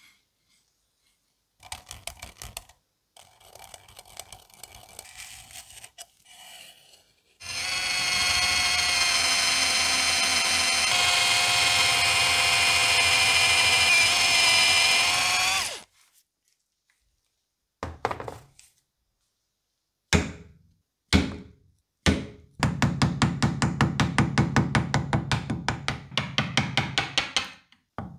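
An electric drill with a twist bit runs steadily for about eight seconds, boring through the cleaver's steel tang into the ebony handle block. Later come three sharp knocks and then a quick even run of blows, about four a second: a chisel being struck to cut a recess in the ebony.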